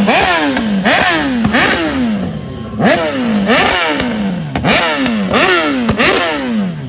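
BMW S1000R's inline-four engine through a short aftermarket slip-on exhaust, revved in about ten quick throttle blips in a row while standing still. Each blip shoots up and then falls away in pitch as the revs drop back.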